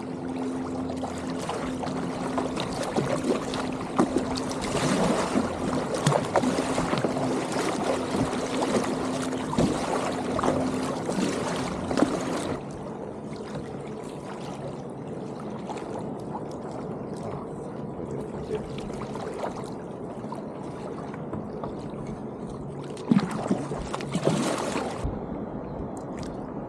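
Water splashing and rushing against a moving kayak, with many small clicks and knocks. A steady low hum runs through the first half and stops abruptly about halfway, after which the water noise is quieter.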